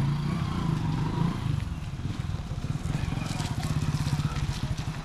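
Parked coach bus's diesel engine idling steadily, a low hum with a fast, even pulse.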